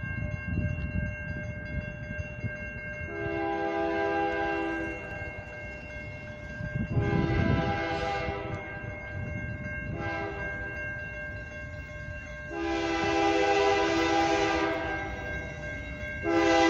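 Multi-note air horn of a CN GE Dash 9 locomotive sounding the grade-crossing signal as the train approaches: two long blasts, a short one, then a long one. A crossing bell rings steadily underneath.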